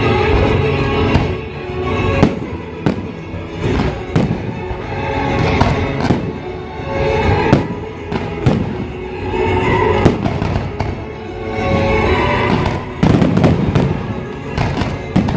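Aerial fireworks shells bursting in a string of sharp bangs over music played for the show. The bangs come thicker and heavier from about thirteen seconds in.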